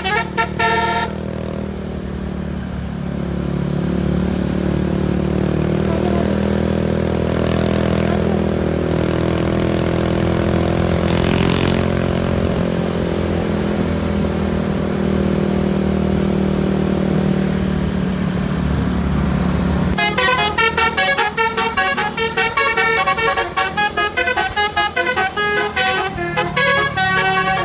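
A steady low drone of several held pitches, then, about 20 seconds in, a bus's basuri telolet multi-tone air horn plays a fast melody of rapidly changing notes.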